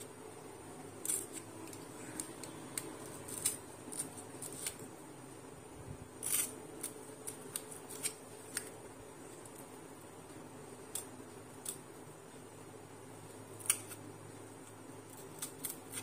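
Utility knife blade cutting and scoring through thin cardboard in short, irregular strokes, with a louder cut about six seconds in and another near the end.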